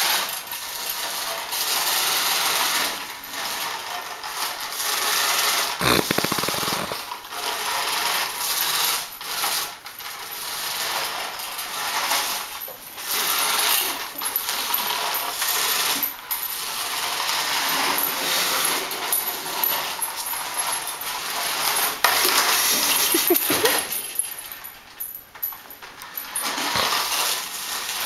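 Small toy RC truck's electric motor and gears whirring in stop-start bursts, with its plastic wheels and body clattering on a tile floor.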